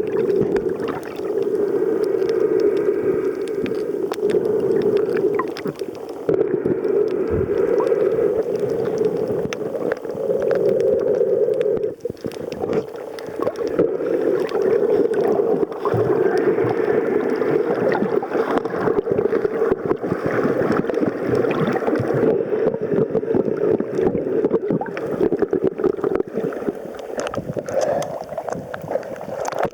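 Steady rushing water noise picked up by a camera in and under the sea while snorkelling, with many small clicks and crackles throughout and brief dips in level now and then.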